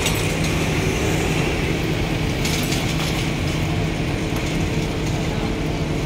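Diesel construction machinery running with a steady low drone, with a sharp click near the start and another about two and a half seconds in.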